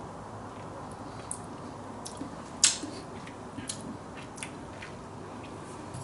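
Small wet clicks and smacks of a mouth tasting homemade syrup, scattered over a few seconds, the loudest about two and a half seconds in, over a steady low background hum.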